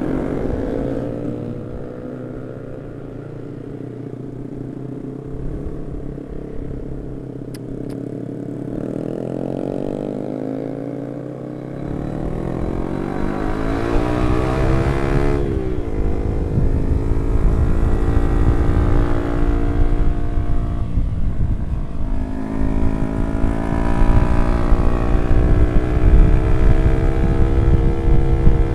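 Yamaha R15 V3 single-cylinder engine under way, its note climbing as it accelerates and dropping at a gear change about halfway through, then pulling on steadily. Wind rumbles on the microphone once speed builds.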